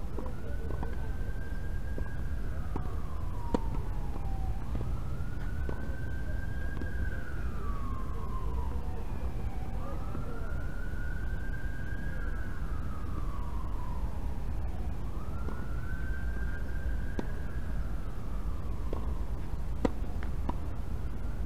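A wailing emergency-vehicle siren, slowly rising, holding and falling in pitch about every five seconds, over steady low background noise, with a few sharp knocks, mostly near the end.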